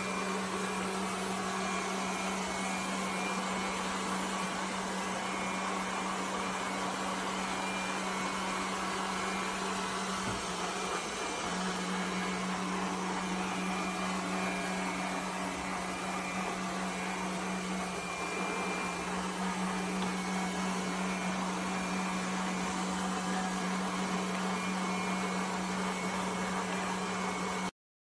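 Robot vacuum cleaner running: a steady whirring hum with a low, even drone under it. The sound cuts off abruptly just before the end.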